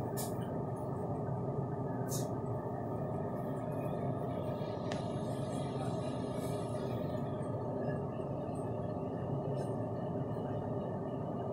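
Steady indoor background noise: an even low rumble and hiss that does not change, with two brief high hisses about two seconds apart near the start and a faint click about five seconds in.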